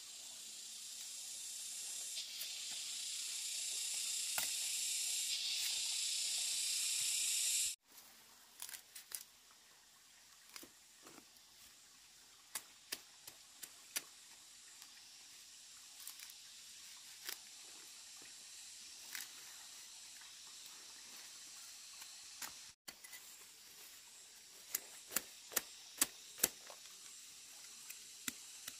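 Machete blade tapping and scraping against freshly dug roots and soil, a scatter of sharp clicks and light knocks that come faster and louder near the end. For the first several seconds a high steady hiss grows louder and then cuts off suddenly.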